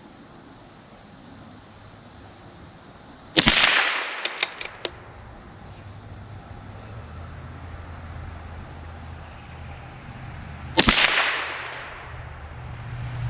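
Two .22LR rifle shots about seven seconds apart, each a sharp crack with a short fading tail: supersonic SK High Velocity ammunition fired from a CZ 457 bolt-action rifle. A few light clicks follow the first shot.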